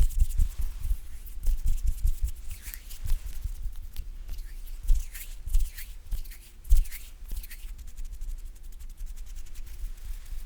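Close-miked ASMR sticky sounds: irregular taps and tacky peeling crackles with soft low thumps, a few sharper hits about halfway through.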